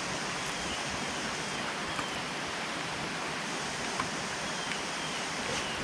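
Steady hiss of rain falling on lake water, with a few faint sharp ticks.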